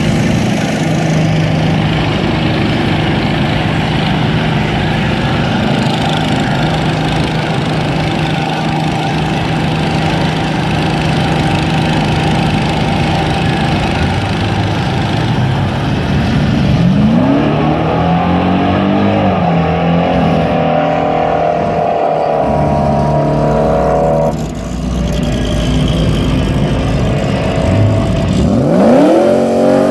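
Ford SVT Lightning pickups' V8 engines idling at the drag-strip start line. About halfway through, a truck launches: the engine note climbs, drops at each gear change and climbs again as it pulls away. A fresh rising rev comes near the end.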